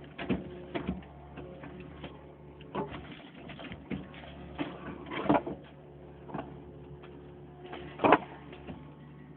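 Backhoe working: a steady low engine hum under irregular metallic clanks and knocks, the loudest about five seconds in and again near eight seconds.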